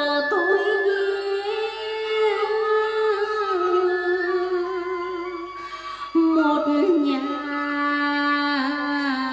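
Music: a voice singing long, drawn-out notes that glide and waver, with instrumental accompaniment. A new phrase starts about six seconds in.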